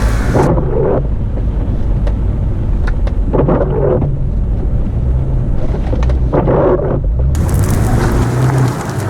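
Off-road 4x4's engine running under load, a low steady drone that shifts in pitch near the end.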